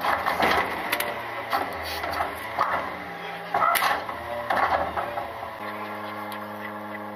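Small side-loader garbage truck's engine and hydraulic cart lifter running, with plastic knocks and clatter as an emptied wheeled trash cart is lowered and pulled off the lifter arm. A little over five seconds in the clatter stops and the engine settles into a steadier, even hum.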